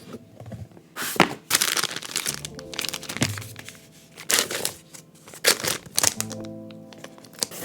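Lofi background music with soft held chords, over irregular handling noise: bursts of crinkling and several sharp cracks and knocks.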